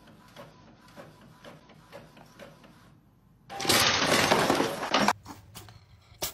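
Printer working with faint, regular ticking, then a sudden loud clattering rush of noise about three and a half seconds in that lasts over a second before dying to a few clicks.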